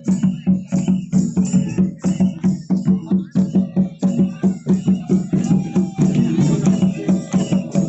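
Santali folk drumming played live for a line dance: hand drums struck in a fast, steady beat, with voices singing along over them.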